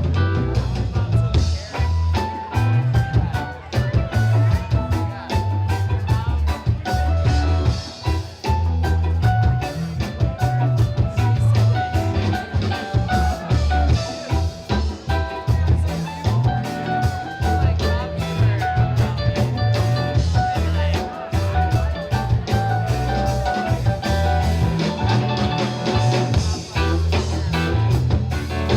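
A rock band playing: electric guitar over bass and drums with a steady beat.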